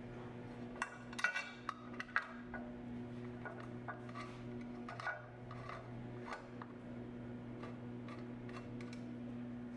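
Small metallic clinks and taps as a long hand driver is fitted into and worked on a timing-belt cover screw, a cluster about a second in and a few more around the middle, over a steady low hum.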